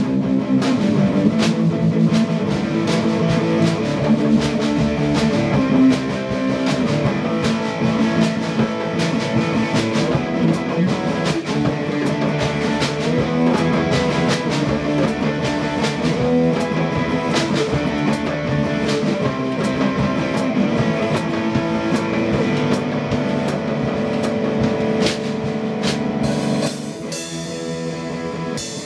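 Live rock jam: an electric guitar and a drum kit played together, with frequent drum and cymbal hits. The playing gets quieter about two seconds before the end.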